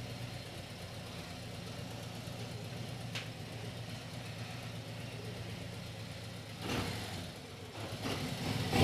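Harley-Davidson Milwaukee-Eight 114 V-twin idling steadily, warmed up. There is a faint click about three seconds in and two brief louder swells of noise near the end.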